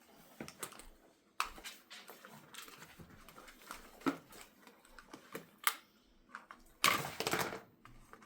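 Plastic pieces of a Shashibo magnetic fidget cube clicking and clacking as its magnets snap together while it is folded into new shapes: a handful of separate sharp clicks. About seven seconds in comes a louder, longer rustling burst.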